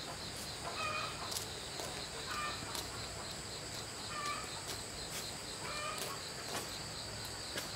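Steady high-pitched insect drone, with a short bird call repeating four times at about two-second intervals.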